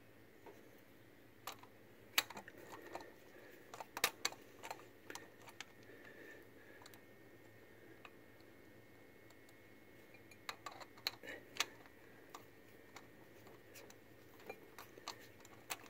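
Irregular small metallic clicks and taps from a screw, bracket and hand tool being fitted on the choke housing of an Edelbrock carburetor. The clicks come in short clusters, with a quieter stretch in the middle.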